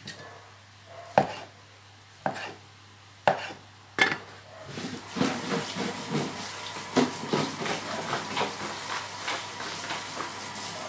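A steel cleaver cutting a tomato on a wooden chopping board: a few sharp single chops about a second apart, then a busier stretch of quick small clicks and crackles.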